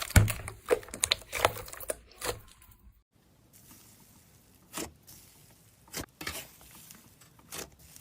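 Slime being pressed and worked by hand, giving a fast run of crackling, clicking pops for the first couple of seconds. After a sudden cut it gives only a few separate soft squishes and pops.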